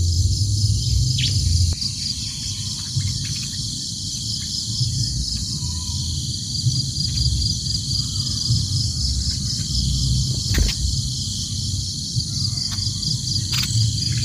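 Steady chorus of insects, a continuous high buzz with rapid even pulsing, over a low rumble, with a few short faint clicks or chirps.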